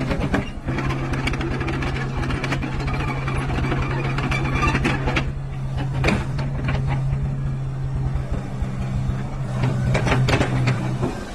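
Hitachi ZX70 excavator's diesel engine running steadily, with a few short knocks and clanks from the machine along the way.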